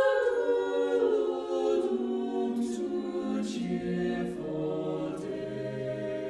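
Mixed SATB choir singing a cappella in slow, held chords. The harmony shifts every second or so while the lowest voice steps down, with soft sung 's' consonants.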